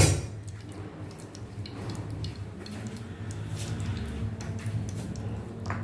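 Cooking oil heating in a non-stick pan on the stove, with faint scattered ticks and crackles over a steady low hum.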